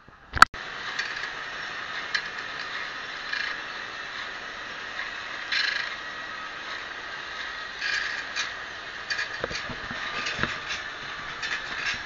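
Band sawmill blade on an automatic sharpening machine: an abrasive grinding wheel grinding the saw teeth, a steady grinding hiss with repeated louder rasps. A single sharp click just under half a second in.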